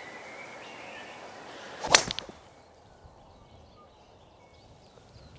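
A golf tee shot: a club head striking the ball in one sharp crack about two seconds in, followed by a few fainter clicks.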